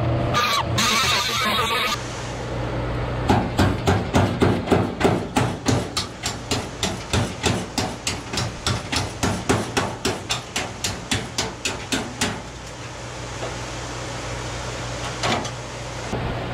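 Rapid, even hammering, about four blows a second for some nine seconds, growing weaker toward the end, over a steady low hum. Background music plays for the first two seconds.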